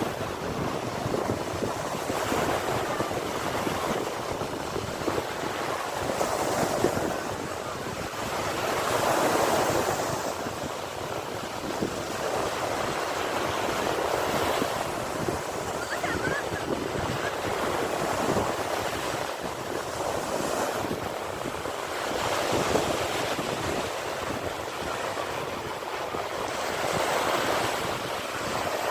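Sea waves breaking and washing on the shore in a continuous surf, swelling and easing every few seconds, with some wind on the microphone.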